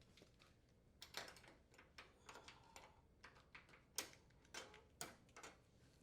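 Faint, irregular clicks and taps of an oven door's metal hinge locks and retaining brackets being handled and rotated into place, with the sharpest click about four seconds in.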